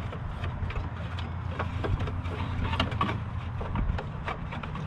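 Scattered light clicks and knocks of a serpentine belt being handled and fed around the engine pulleys, over a steady low hum.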